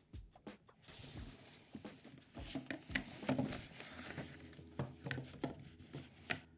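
Rigid PVC pipes and fittings being handled and pushed together on a workbench: light clacks, knocks and scraping as the glued joints are fitted.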